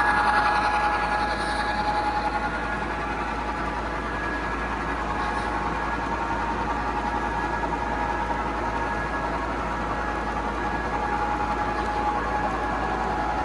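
A long model train of eight locomotives and about 30 coal cars running on its layout track: a steady rolling noise with a couple of steady tones through it, slightly louder for the first two seconds.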